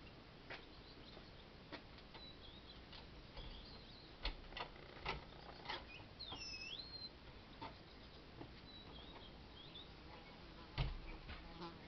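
Faint outdoor ambience: a small bird chirps in short bursts a few times, among scattered light clicks and taps, with one dull thump near the end that is the loudest sound.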